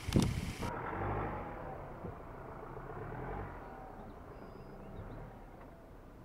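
Ford Ranger Raptor's 2.0-litre bi-turbo diesel engine pulling the truck over rough off-road ground, its note rising about a second in and then fading as the truck moves away. A short thump right at the start is the loudest sound.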